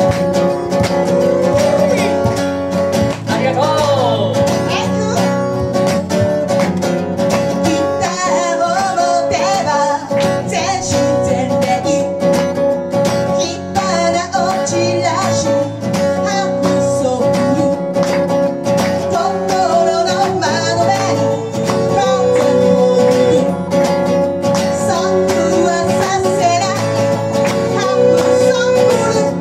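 Live guitar-and-vocal performance of a blues-rock song: strummed guitar accompanying a singer's melody.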